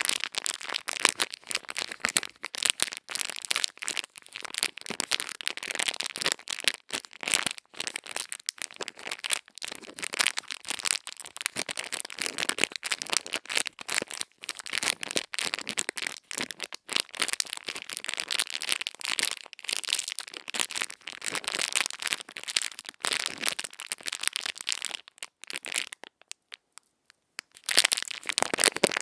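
Close-miked ear-cleaning ASMR: ear-cleaning tools scratching and rubbing, making dense, crisp crackling and scratching. There is a short pause about 26 seconds in.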